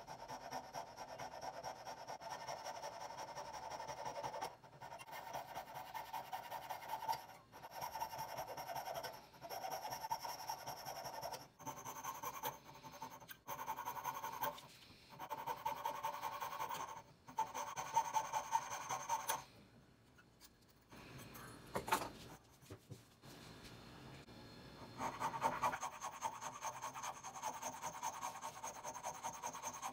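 A hand tool worked back and forth over a workpiece in quick rasping strokes, in runs of a few seconds with short pauses between. A single sharp knock comes about two-thirds of the way through.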